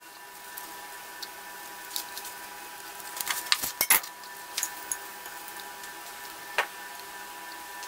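Light taps and clicks of hands handling arugula leaves on a plastic cutting board and a ceramic plate, loudest in a quick cluster around the middle, over a steady electrical hum.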